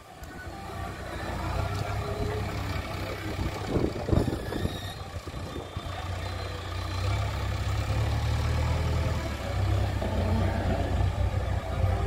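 JCB 3DX backhoe loader's diesel engine running as the machine manoeuvres with its front loader bucket. The engine gets louder about halfway through, and there is a short knock about four seconds in.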